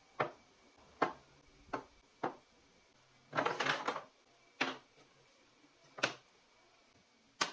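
Wooden pieces being set down and handled on a wooden workbench: a series of sharp wooden knocks at irregular intervals, with a short clattering flurry of several knocks about three and a half seconds in.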